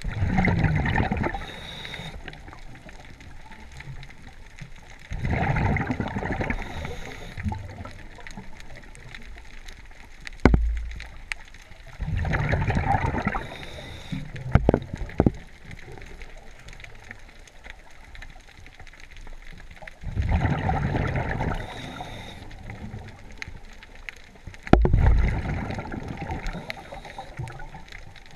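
Scuba diver's exhaled breath bubbling out of the regulator in four bursts of about two seconds each, several seconds apart, heard underwater through the camera housing. A couple of dull low knocks fall between the breaths.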